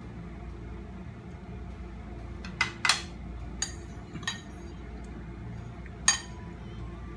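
A spoon clinking against a bowl during eating: about five sharp clinks between three and six seconds in, the loudest pair close together near the start. A low steady hum runs underneath.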